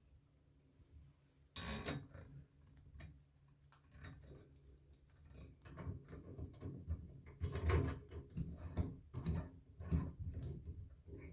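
Handling noises from shower-head fittings being worked by hand: scattered clicks, knocks and rubbing. A sharp knock comes about two seconds in, and a louder cluster of knocks follows past the middle.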